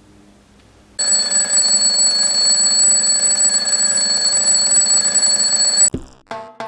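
Alarm clock ringing loudly and steadily for about five seconds, then cutting off suddenly, followed by a couple of short knocks.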